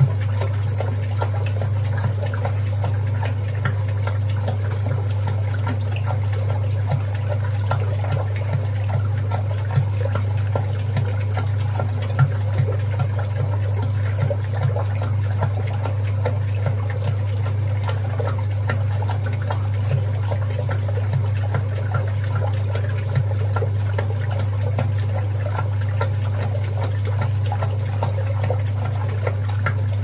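1961 Hoover Keymatic 3224 front-loading washing machine washing a load: water and suds sloshing as the drum turns the wet laundry, over a steady low hum.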